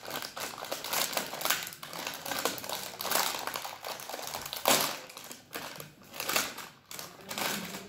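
Small plastic packet of salted peanuts crinkling as it is torn open by hand: a run of quick, irregular crackles, the loudest a little past halfway.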